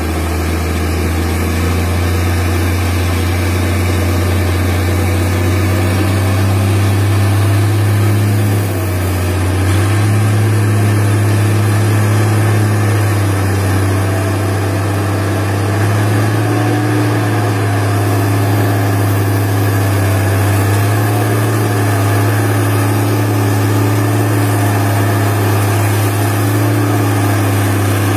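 International farm tractor's engine running under load as it hauls a loaded log trailer up out of a muddy stream, a steady low drone that eases briefly about a third of the way in and then picks up again, with small rises and dips after.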